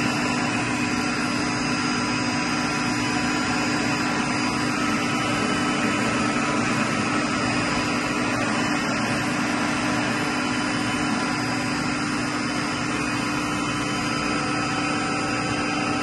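York YMC2 magnetic-bearing centrifugal chiller running on its variable-speed drive, a steady machine hum and hiss with several high steady whining tones. The compressor motor is turning at about 249 Hz, pulling the chilled water temperature down.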